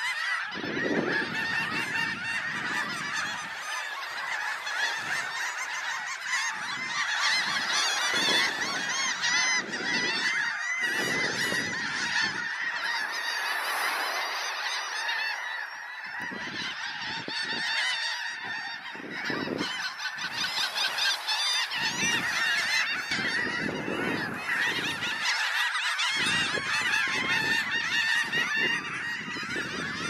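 Large mixed flock of shorebirds and laughing gulls calling over one another without pause, a dense chorus of short calls. A low rushing noise comes and goes underneath.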